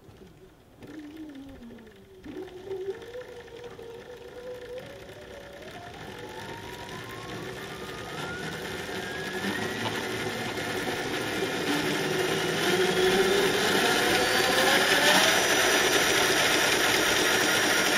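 Electric motorcycle motor spinning up the chain-driven rear wheel on a stand, run off a 48-volt nickel-metal-hydride battery string. A whine climbs steadily in pitch and grows louder for about fifteen seconds, then levels off near the end.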